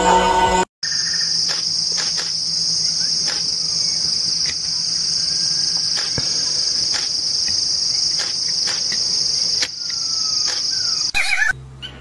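Steady high-pitched insect drone, an unbroken chorus of cicadas or crickets with a few faint clicks, starting after a brief silence near the start. It cuts off about eleven seconds in, and a few short bird chirps follow.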